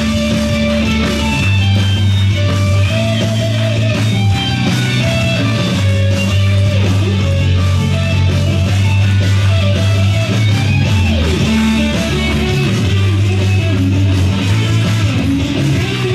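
Wrestler's entrance music: loud rock music with guitar over heavy sustained bass notes.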